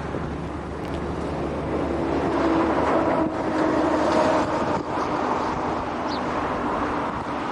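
Road vehicle passing: engine and tyre noise swells about two seconds in and eases off after about five seconds.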